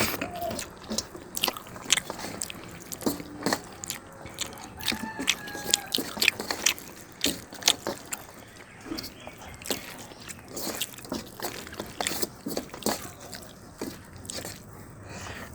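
Close-up eating sounds: a person chewing and biting food, with many sharp, irregular crunchy clicks.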